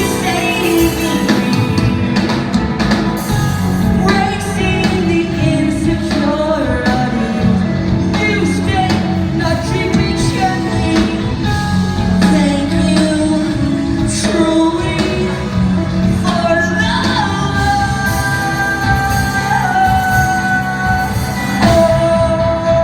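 Live rock band playing loudly in a concert hall, with a lead vocalist singing over electric guitars, bass and drums, heard as an audience recording with the room's reverberation.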